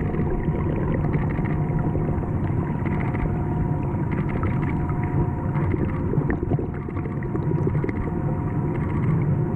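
Underwater ambience picked up by a camera submerged in a swimming pool: a steady deep rumble with a faint constant hum above it, and scattered small clicks and crackles.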